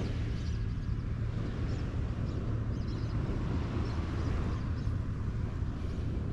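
Steady low rumble of wind on the microphone and surf on the beach, with a few faint high chirps now and then.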